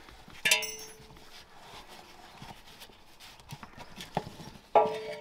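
Rear air spring (rubber airbag) of a Land Rover Discovery 2 being twisted and worked free by hand. Two short squeaks, about half a second in and again near the end, with light knocks and rubbing between.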